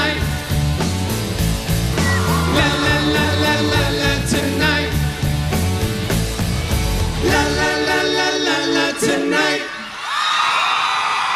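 Male vocal group singing a pop song live over a band with a strong beat; the beat drops out near the end and the song finishes, and then the crowd screams and cheers.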